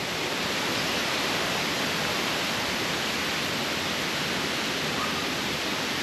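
Steady rush of flowing water from the forest waterfall, an even hiss with no change in level. A faint short chirp comes about five seconds in.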